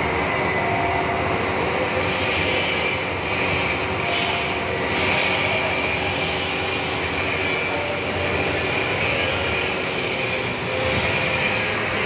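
Steady, loud mechanical roar of machinery, with a few faint steady tones over a continuous noise.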